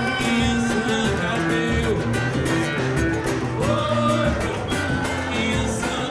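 Live samba band playing, with a woman singing long held notes into a microphone over plucked cavaquinho-type strings and steady percussion including a surdo bass drum.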